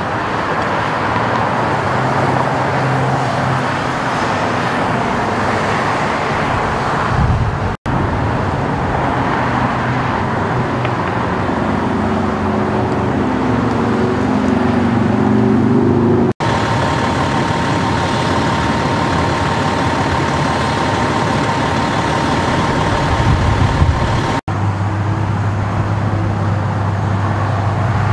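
Steady freeway traffic noise: passing cars and trucks with a low engine hum underneath.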